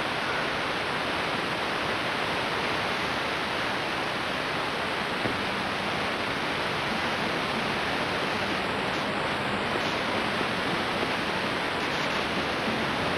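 Steady hiss of static from an unrecorded stretch of videotape playing back.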